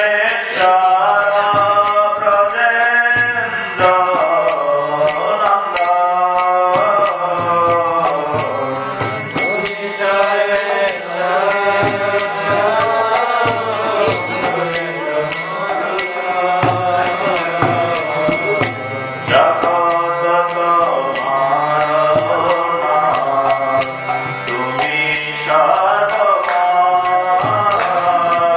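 Devotional mantra chanting sung to a melody, with a steady rhythm of sharp high ticks running under the voices.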